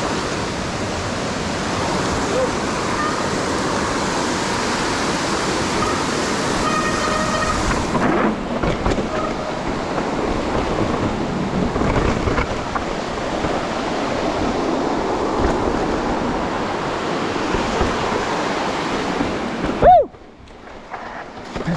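Steady rushing noise of a waterfall. Near the end there is a sharp loud knock, and after it the rushing drops much quieter.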